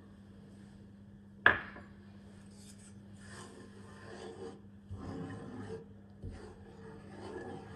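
One sharp knock about a second and a half in, then a wooden spoon stirring and scraping through a thin barley-flour and milk mixture in a shallow pan, in uneven strokes.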